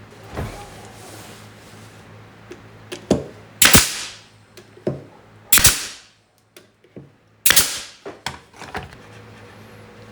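Hammer striking wood: a few lighter knocks, then three heavy blows about two seconds apart, each followed by smaller taps.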